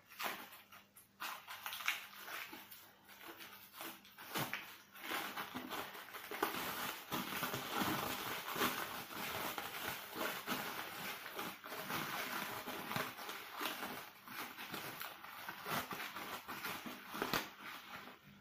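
Plastic cling film crinkling and crackling as gloved hands unwrap it from a wrapped piece of meat, with irregular sharp crackles, busiest in the middle.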